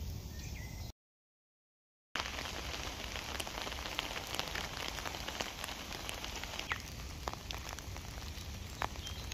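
Rain falling on a waterproof army tarp and bivvy bag: a steady hiss dotted with many sharp individual drop hits. It starts about two seconds in, after a second of complete silence at an edit; before that, faint outdoor ambience.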